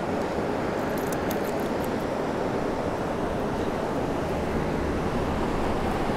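Steady rush of fast-flowing river water, with a few faint ticks about a second in.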